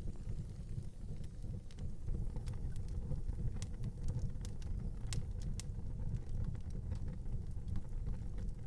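Fire burning in an outdoor fireplace: a steady low rumble with scattered sharp crackles and pops.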